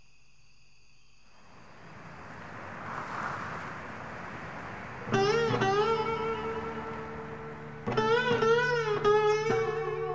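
Acoustic blues guitar: a chord struck about five seconds in and another near eight seconds, the notes held and wavering in pitch like slide or bent strings. A soft rising hiss comes before the first chord.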